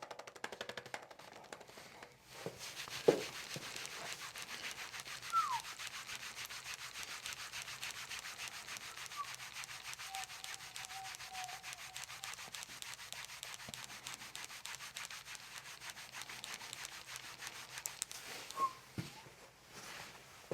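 Steady dry rubbing and scratching, a sustained friction sound, with one sharp click about three seconds in and a brief falling squeak a couple of seconds later.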